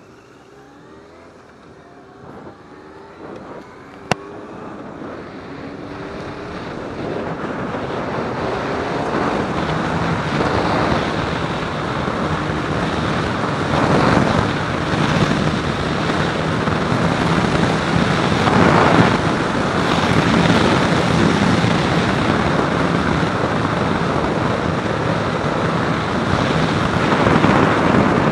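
Yamaha Thundercat's inline-four engine revving up through several gears, the pitch climbing and dropping at each shift, with a sharp click about four seconds in. Wind rushing over the microphone then builds with the speed and covers the engine for the rest of the time.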